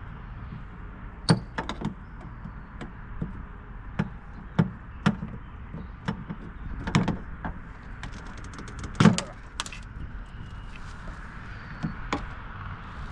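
Scattered sharp knocks, taps and clicks of hand tools and parts being handled while a self-tapping screw holding a boat's fish finder is worked out. A quick run of ticks comes just before the loudest knock, about nine seconds in.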